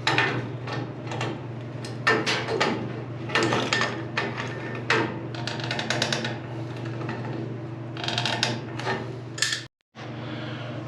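Irregular metallic clicks, knocks and ratchet-like clatter of hand tools and plumbing fittings being handled, over a steady low hum. The sound cuts out briefly near the end.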